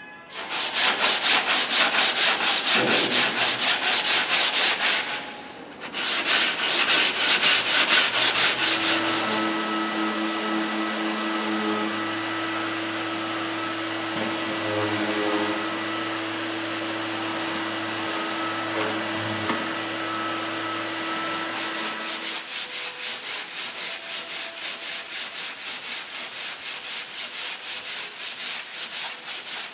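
Sandpaper rubbed by hand over body filler on a car's rear wheel arch in rhythmic back-and-forth strokes. From about nine seconds in, a round-pad orbital sander with a dust-extraction hose runs steadily on a door panel for about thirteen seconds. Then the rhythmic hand-sanding strokes start again.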